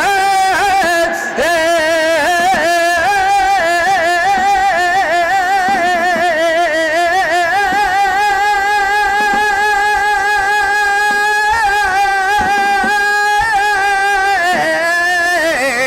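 A male flamenco cantaor singing a saeta with no accompaniment: long drawn-out melismatic notes with a fast, wavering ornamented vibrato, one held note lasting several seconds past the middle, and a brief breath about a second in.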